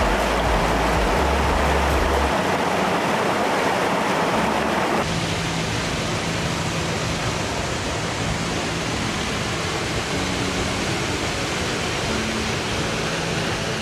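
Small mountain waterfall: water falling and rushing in a steady, loud wash, its tone shifting about five seconds in.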